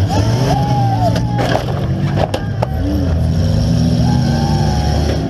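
Demolition-derby minivan's engine running hard, heard from inside the stripped cabin, with several sharp knocks around the middle.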